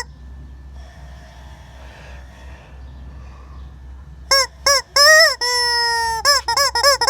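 Squeaking rubber chicken toy squeezed repeatedly, a honking squeal each time. After a few quiet seconds come two short squeaks, then one long held squeal, then a quick run of short squeaks near the end.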